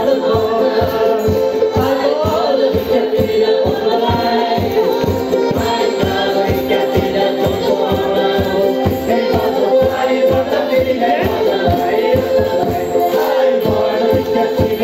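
Live Madeiran folk music for dancing: voices singing together over sustained instrument chords and a steady, evenly spaced drum beat.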